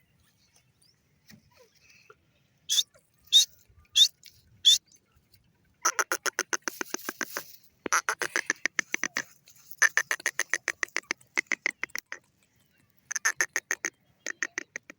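Female grey francolin calling: four sharp, separate notes, then three runs of rapidly repeated notes at about eight or nine a second.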